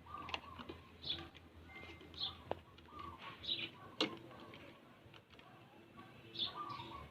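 Birds chirping in short, scattered calls, with two sharp clicks about two and a half and four seconds in.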